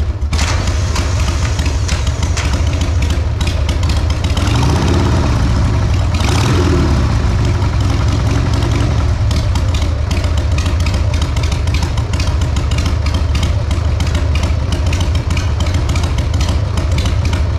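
Harley-Davidson Sportster XLH1200's Evolution V-twin engine idling through short drag pipes, with two brief blips of the throttle a few seconds in. It is running on fresh oil just after an oil and filter change.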